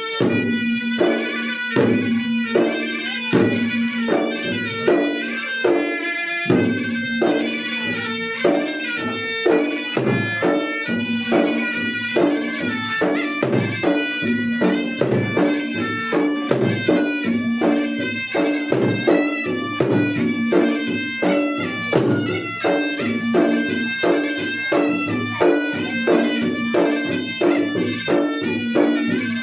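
Traditional Makassar gendang ensemble playing: two-headed gendang drums beat a fast, driving rhythm under a shrill, continuous reed-pipe melody of the pui-pui shawm.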